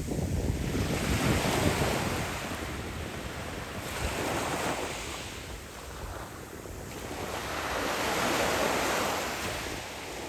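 Small sea waves breaking and washing up a pebble beach, the surf swelling and fading every few seconds. Wind rumbles on the microphone, most near the start.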